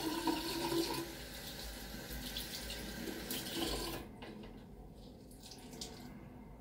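Water running from a bathroom sink tap as a silk durag is wetted under it. The tap is shut off about four seconds in.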